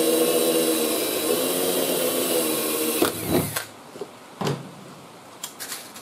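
Cordless drill running steadily as it bores a rivet hole through the overlapped sheet metal of a cab-corner patch panel, stopping about halfway through. A few light clicks follow.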